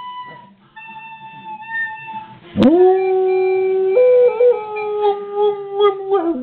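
Coonhound howling: after a faint steady high tone, one long loud howl starts about two and a half seconds in. It sweeps up to a held note, steps briefly higher about four seconds in, settles back, and wavers near the end.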